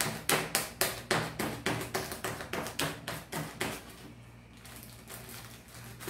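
Quick sharp taps of a pointed utensil punching holes in plastic bags of soybeans for tempeh, about four pricks a second, stopping a little over halfway through. The holes let air reach the tempeh as it ferments.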